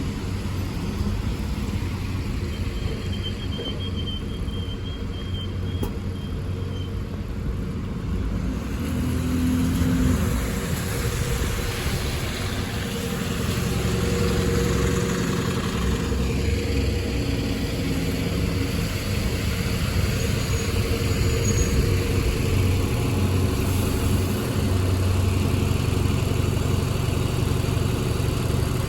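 London buses and road traffic running and pulling past, with a steady engine rumble. From about nine seconds in, a hiss of tyres on the wet road grows louder.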